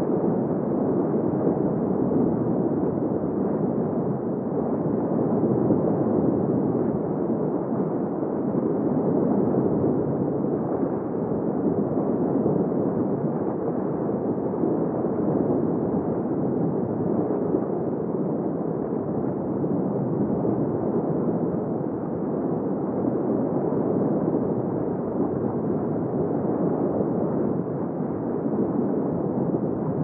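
Steady underwater ambience: an even, deep rushing noise of water, with no separate calls, clicks or bubbles standing out.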